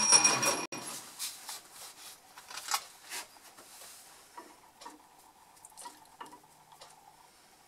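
Boxford metal lathe running with a steady whine that cuts off suddenly under a second in as the spindle is stopped. Then come scattered light metallic clicks and taps as the stopped work is handled and a micrometer is set on the turned steel bar.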